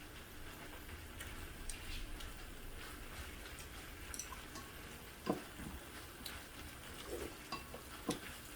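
Faint sizzling of a squid and pork belly stir-fry on an iron griddle, with scattered clicks and knocks of utensils against the pan. The loudest knocks come about five seconds in and again near the end.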